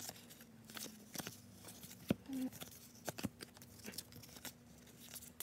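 Cardboard trading cards being flipped and slid off a stack in the hands: a run of irregular papery flicks and snaps.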